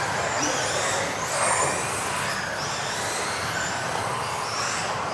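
Several electric RC off-road buggies racing together. Their motors whine high, rising and falling over and over as the cars accelerate and brake, over a steady rush of noise.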